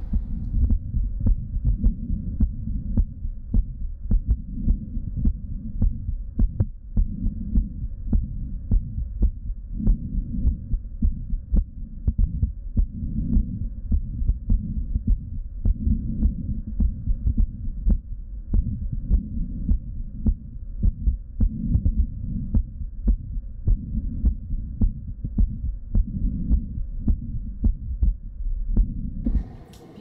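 A woman's heartbeat heard through a Littmann stethoscope over the aortic and pulmonary valve areas: steady, regular lub-dub beats over a low rumble, cutting off near the end. The heart has a murmur, which the doctor puts down to diastolic dysfunction, a stiff left ventricle that does not relax well between beats.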